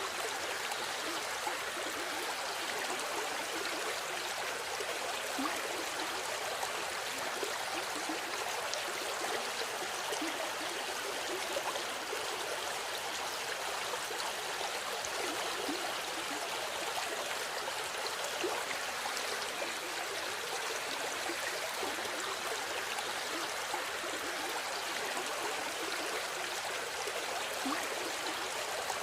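River water flowing and babbling over rocks, a steady rushing with small splashes and gurgles throughout.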